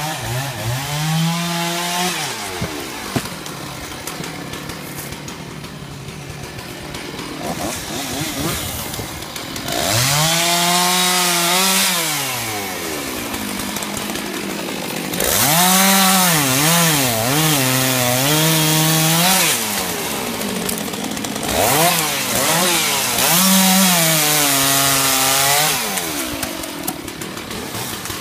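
Chainsaw revving up and cutting into a felled tree trunk in four long bursts, its pitch dipping and wavering under load, with the engine dropping back to a lower, quieter run between cuts.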